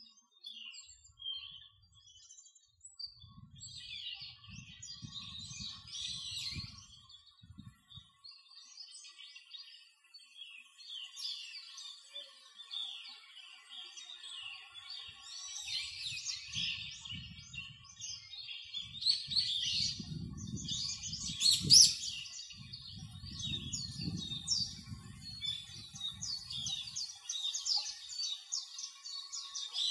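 Small birds chirping over and over in short, quick calls, with a low rumble that comes and goes.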